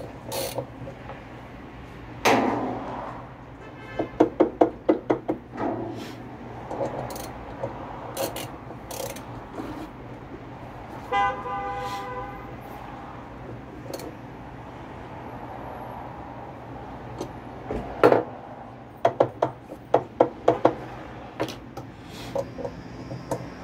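Ratchet wrench clicking on a washer's wash-basket hub nut, in two short runs of about four clicks a second, each after a louder knock. A vehicle horn sounds once, about eleven seconds in.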